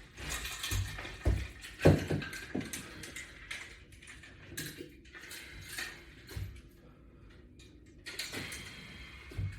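Resistance-band exercise gear in use: a run of irregular light knocks and clicks of hard fittings, coming thickly at first and thinning out after about six seconds.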